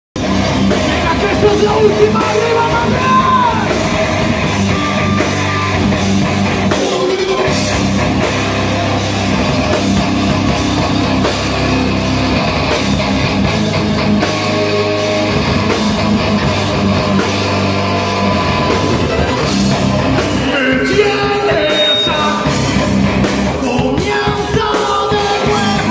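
Heavy metal band playing live and loud: electric guitars, bass guitar and a drum kit, with a singer's vocals over them.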